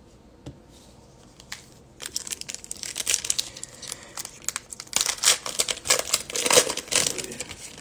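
Foil wrapper of a Bowman baseball card pack being torn open and crinkled by hand: a dense run of crinkling and tearing starts about two seconds in and lasts several seconds, after a couple of faint clicks.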